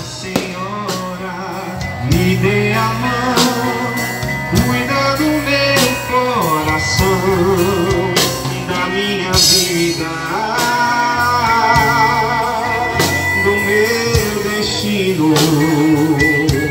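Live band music, drum kit and keyboard, playing a slow devotional song with singing over it.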